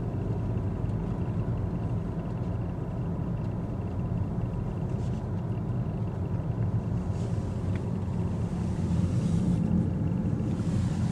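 Steady low rumble of a Mazda 3 rolling slowly, heard from inside the cabin: engine and tyre noise. A light hiss swells for a few seconds about two-thirds of the way through.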